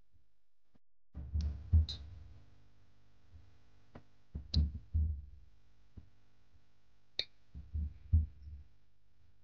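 A wooden rolling pin rolling out a disc of wheat-flour dough on a round board: three short bouts of low rumbling strokes, about a second in, near the middle and near the end, with a few sharp clicks.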